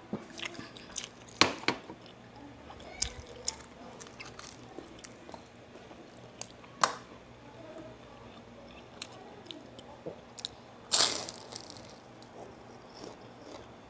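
Close-up eating sounds: scattered light clicks and taps of dishes early on, then a loud crunchy bite into a fried vegetable spring roll (lumpia) about eleven seconds in, followed by chewing.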